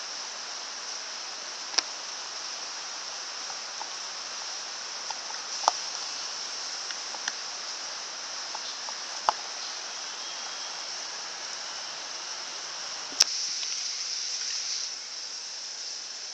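A wooden stick stirring glue and paint for slime in a clear plastic tub: a few sharp knocks of the stick against the tub, about four in all, the loudest near the end, over a steady hiss.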